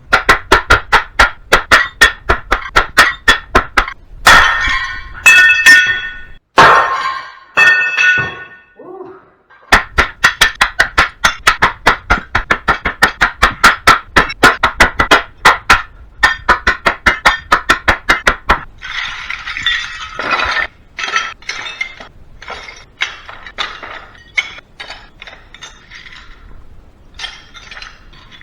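Rapid hammer blows on ringing metal, about three to four strikes a second, with a few heavier clangs and a short pause; the strikes give way near the end to lighter, irregular clinks of metal scrap.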